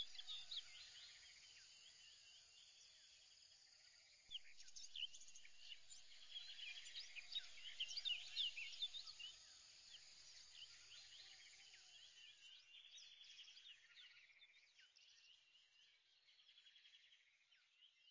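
Faint chirping ambience: many short high chirps, busiest midway, fading out near the end.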